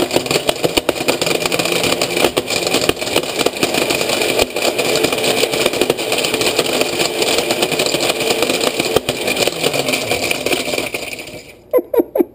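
Cuisinart glass-jar blender motor running at speed, with a pair of plastic sunglasses clattering against the blades and jar in a rapid stream of hard knocks. The motor stops near the end and the noise dies away quickly.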